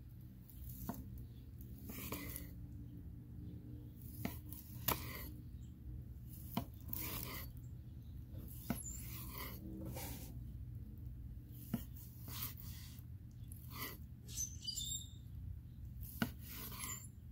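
Victorinox granton-edge slicing knife cutting a grilled New York strip steak on a wooden cutting board: repeated sawing strokes through the seared crust, each ending in a sharp tap of the blade on the board, about every one to two seconds.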